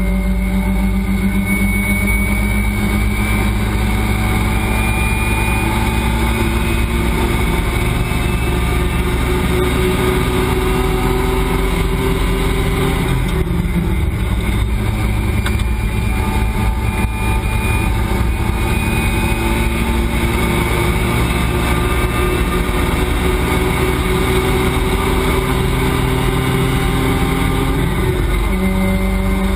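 Race car engine heard from inside the cockpit under hard acceleration, its pitch climbing steadily, dipping about 13 seconds in and again near the end, then climbing again, over wind and road noise.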